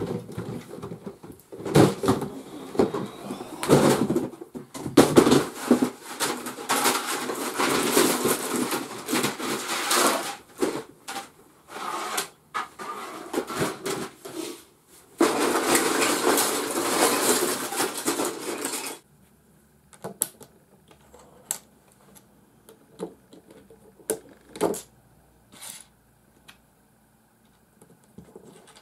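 Loose Lego pieces clattering and rattling in a plastic storage box as it is handled and rummaged through, with one longer unbroken rattle as the pieces are stirred or poured. Near the end this gives way to a few separate small clicks as Lego bricks are fitted together.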